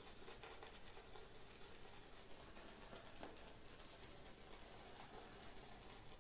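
Very faint, scratchy swirling of an Omega shaving brush being loaded with soap from the tub, a steady run of small bristle-on-soap rubbing sounds.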